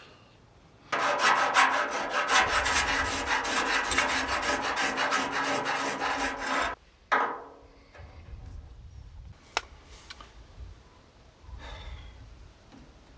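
Hand file rasping in quick strokes against the steel of a chassis bush hole, enlarging the hole so the bush will fit. The filing stops about seven seconds in with a knock, followed by quieter handling noises and a click.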